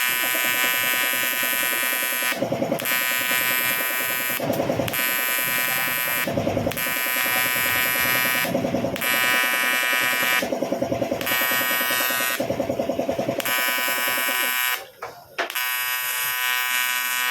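TIG welding arc buzzing steadily while welding a repair on a CT100 motorcycle engine block, swelling about every two seconds. The arc cuts out briefly twice near the end.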